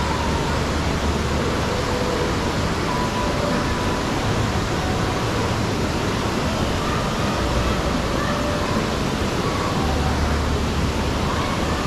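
Steady rush of water in an indoor pool, heard with the microphone just above the rippling surface.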